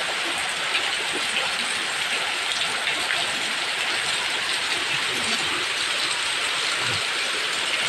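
Heavy rain falling steadily, a dense even hiss flecked with the ticks of drops hitting surfaces, with floodwater around.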